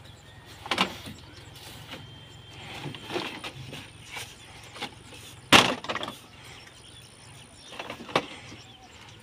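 Plastic produce crates clattering as they are handed down off a truck bed and dropped onto a stack. There are four sharp knocks a few seconds apart, and the loudest comes just past halfway.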